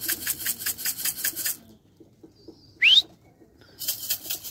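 A flock of loft pigeons flying close overhead, their wings beating in a fast, even flutter of about seven strokes a second. The flutter stops about a second and a half in and comes back near the end. In the gap there is a single short whistle rising in pitch, the loudest sound.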